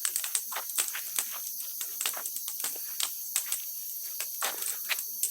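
Wood bonfire burning, crackling with irregular sharp pops and snaps several times a second, over a steady high insect chorus.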